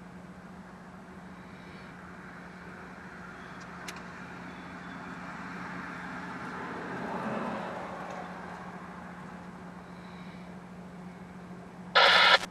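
A road vehicle passes outside the parked car, swelling and then fading about halfway through, over a steady low hum. Near the end comes a short, loud burst of static from a railroad scanner radio.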